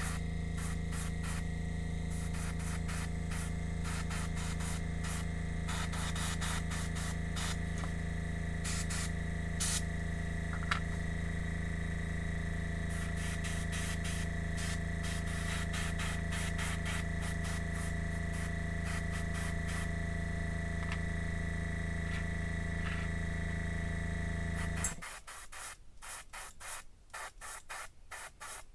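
Airbrush spraying model paint with its small compressor humming steadily under the hiss of air. About 25 seconds in the compressor stops abruptly, and only short, uneven hisses follow.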